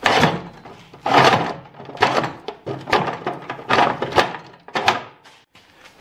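A John Deere 928E snowblower's drive wheel being worked off its axle shaft by hand: a string of short scrapes and knocks, roughly one to two a second.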